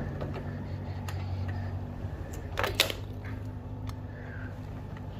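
A few light clicks and knocks of motorcycle footpeg parts being handled and fitted, the loudest a short run of clicks about two and a half seconds in, over a steady low hum.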